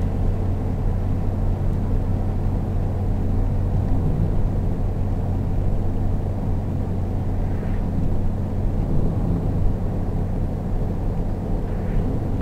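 Steady car cabin noise while driving at an even speed: a constant low engine and tyre rumble heard from inside the car.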